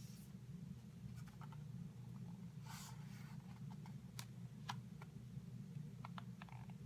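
Quiet room hum with small handling noises: a short rustle about three seconds in, then a few light clicks.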